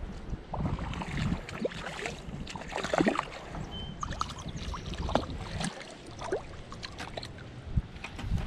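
Irregular splashing and sloshing of shallow river water, with a low, gusty rumble of wind on the microphone.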